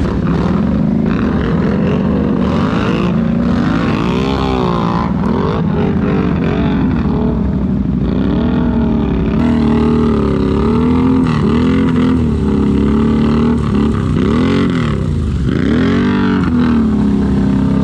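ATV engine revving up and down over and over, its pitch rising and falling every second or two.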